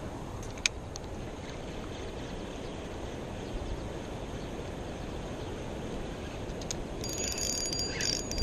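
Spinning reel being cranked to retrieve a cast lure, a high whirring from the reel's gears starting near the end. Before that there is steady outdoor background noise and a single sharp click about half a second in.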